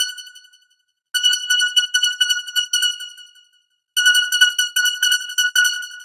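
Synthesized emergency alert (EAS) alarm tone: one steady high pitch with a fast flutter, repeating in bursts roughly every three seconds. Each burst starts abruptly and fades away; one dies out at the start, and new ones begin about a second in and again past the four-second mark.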